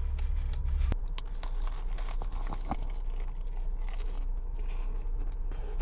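Crisp crunching and crackling as a fried shrimp temaki hand roll is bitten into and chewed.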